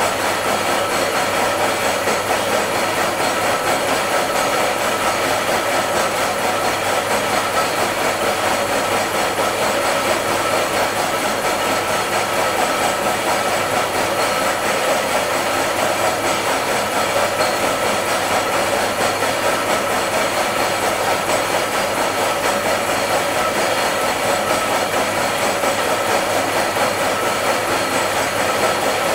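Milling machine face-milling a metal workpiece held in a vise: steady cutting and drive noise with a constant whine.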